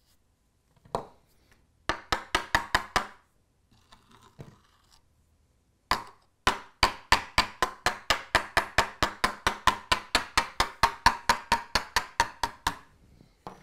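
A metal teaspoon tapping quickly and lightly on model railway track laid in loose ballast on a wooden board: a short run of about eight taps, then a longer run of about thirty at roughly five a second.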